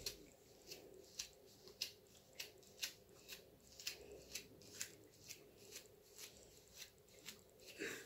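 A pink comb dragged again and again through short, coarse, tangled hair: faint quick scratching strokes, about two a second.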